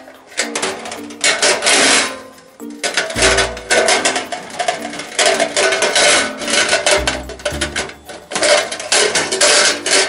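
Stainless-steel parts of a mini charcoal grill clattering and scraping in several bursts as the charcoal tray is set into the grill body and the grill net is lowered on top, over background music.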